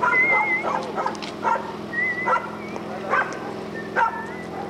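A dog barking repeatedly, about six barks spaced less than a second apart.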